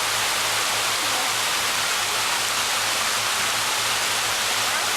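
Waterfall: a steady rush of falling water close by, even and unbroken.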